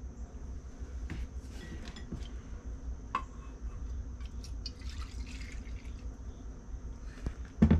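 Light clicks and taps of glass jars being handled, over a steady low hum and a faint high whine, with a sharp knock near the end.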